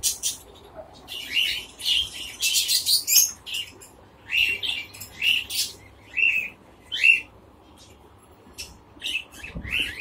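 Caged finches and budgerigars chirping: short, high calls in irregular clusters, with a brief lull about three quarters of the way through.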